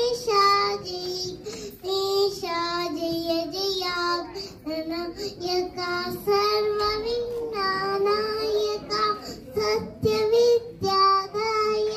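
A young girl singing solo into a handheld microphone, in sung phrases of held notes with brief pauses for breath between them.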